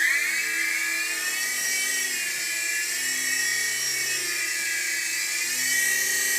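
Toy remote-control helicopter's small electric motor and rotor spinning, a loud high whine that wavers up and down in pitch as the throttle changes.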